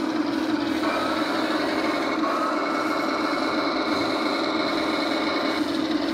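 Radio-controlled Tiger I tank model running: a steady low engine drone from its sound unit, with a thin electric whine, consistent with the turret traverse, that comes in about a second in and stops shortly before the end.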